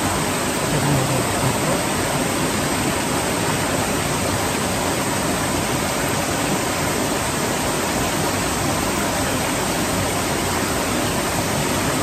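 Valley stream running, a steady rushing hiss of flowing water with no change throughout.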